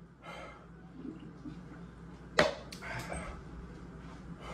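A man breathing hard and blowing out air against the burn of the One Chip Challenge chili chip, with one sharp click or knock about two and a half seconds in.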